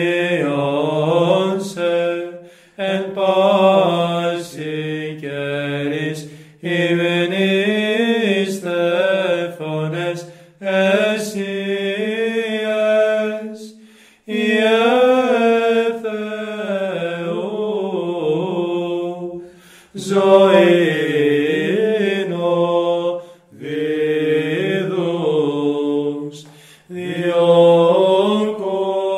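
A solo male voice singing Byzantine chant of Orthodox Vespers in Greek, in long, drawn-out, winding phrases broken by short pauses for breath.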